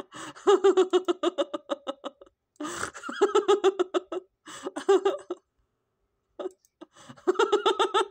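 High-pitched laughter from one person, in four bursts of quick, rhythmic 'ha-ha' pulses with short pauses between.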